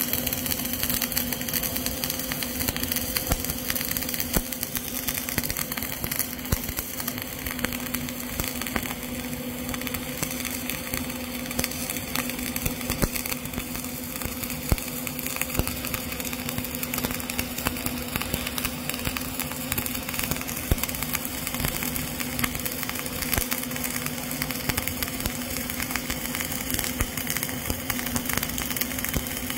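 Flux-cored arc welding with CO2 shielding gas: the arc's steady frying crackle and hiss as the final-layer (cap) pass is laid, over a steady low hum.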